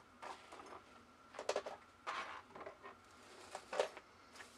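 Faint handling of plastic action-figure parts: a few short, scattered clicks and rustles.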